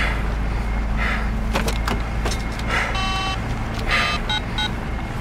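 Truck engine and road noise rumbling steadily inside the cab, with a cellphone's electronic beeps: a longer tone about three seconds in, then a few short keypad beeps as a number is dialled.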